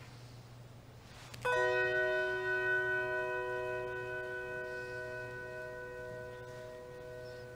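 A bell struck once about a second and a half in, ringing on with several clear tones and slowly dying away, one tone gently wavering. It is rung as a remembrance for the lost loved ones just named.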